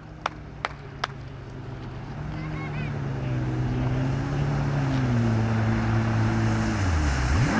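Stand-up jet ski engine running under throttle and growing steadily louder as the craft comes closer, its pitch wavering and dipping briefly near the end, over the hiss of its spray. Three sharp clicks in the first second.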